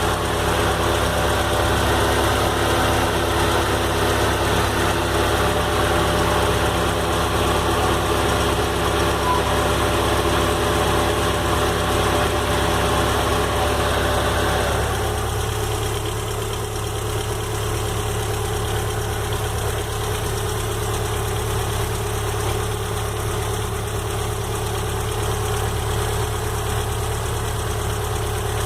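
Volkswagen AP inline four-cylinder engine idling warm with a persistent tec-tec-tec ticking that remains after a rebuild, a new cylinder head and new hydraulic lifters; the owner does not know its cause. The engine note shifts and drops slightly about halfway through.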